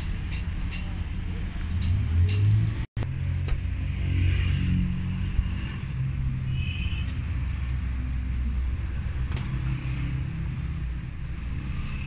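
A steady low engine rumble in the background, with scattered light clicks of metal diesel-pump parts being handled.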